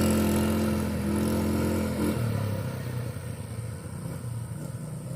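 ATV engine running with a steady note that drops in pitch about two seconds in, then grows fainter.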